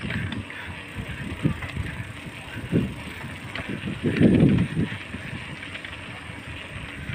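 Wind and motion noise on a handheld phone's microphone while riding a bicycle: an uneven low rumble in gusts, with a stronger surge about four seconds in.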